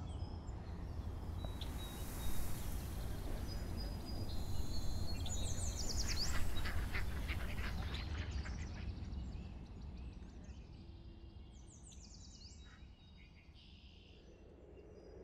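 Outdoor nature ambience: birds chirping and trilling over a low rumble, which fades down over the second half.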